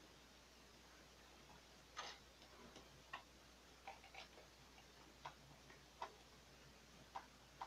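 Faint, irregular clicks and taps of hands handling the plastic parts of an opened-up HP OfficeJet 4500 printer, about ten of them, starting about two seconds in.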